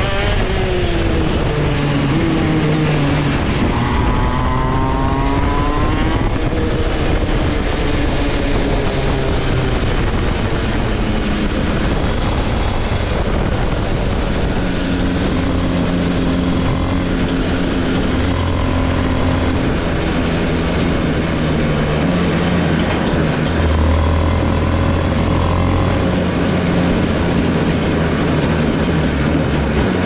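Shifter kart engine running hard on track. Its pitch drops near the start, climbs a few seconds in, then keeps rising and falling as the kart goes up and down through the gears.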